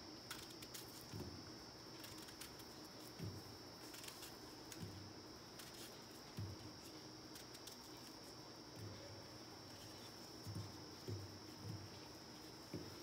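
A knife cutting raw plantain into chunks over a ceramic bowl: faint, irregularly spaced soft knocks, about ten in all, as the blade goes through and the pieces drop in. A faint steady high-pitched whine runs underneath.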